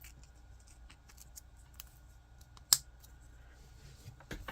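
Scattered light clicks and taps of small 3D-printed plastic parts being handled, with one sharper click a little past halfway and a few more near the end.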